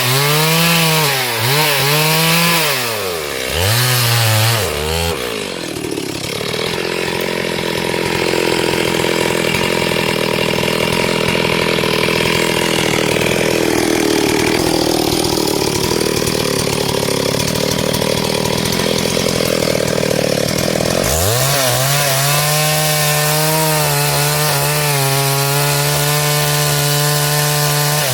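Two-stroke chainsaw blipped up and down in quick bursts, then held down in a cut through wood for about fifteen seconds, its engine note lower under load. Near the end it breaks free and runs at a steady high pitch at full throttle.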